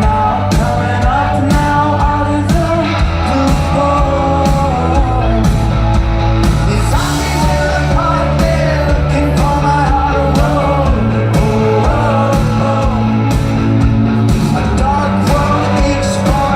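Rock band playing live: singing over a steady drum beat, bass and guitars.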